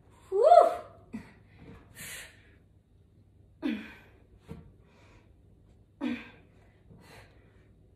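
A woman's heavy breathing from exertion: a loud voiced gasp with rising pitch about half a second in, then several sharp breathy exhales every couple of seconds.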